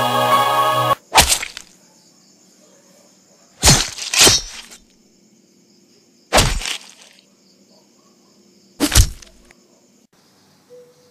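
Music cuts off abruptly about a second in. It is followed by loud, heavy bangs, each with a short ringing tail: one, then two close together, then one, then one more, spaced a couple of seconds apart. A faint steady high hiss lies under the gaps.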